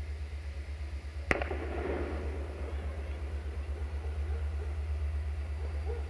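Diesel locomotive engine running with a steady, rapidly pulsing low throb as the train approaches. A single sharp knock comes about a second in.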